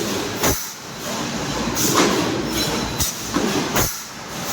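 Spot-welding machinery at work: sharp clanks about once a second over a steady hiss and rumble.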